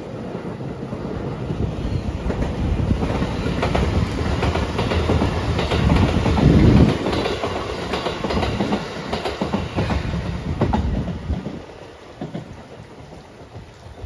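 A JR Marine Liner rapid electric train passing at speed, its wheels clattering rhythmically over the rail joints. It grows to its loudest about halfway through, then falls away sharply near the end.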